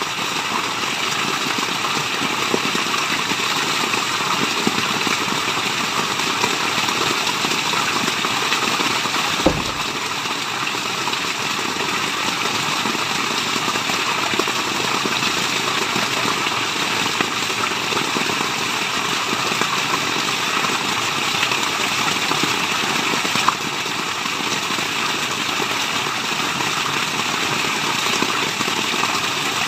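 Waterfall: a steady, even rush of falling water, with one brief click about nine and a half seconds in.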